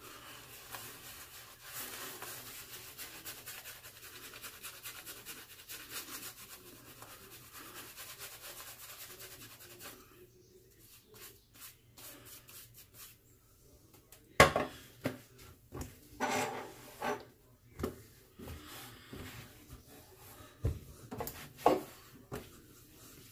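Razor scraping steadily through lathered stubble on the scalp during a head shave. From about two-thirds of the way through, this gives way to sharp knocks and clatter of shaving gear being handled and set down while cleaning up.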